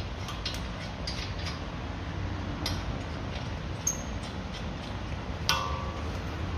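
Light metallic clicks and clinks of nuts and hand tools being handled as the three lower nuts of the front hub assembly are put on, with one sharper ringing clink about five and a half seconds in, over a steady low hum.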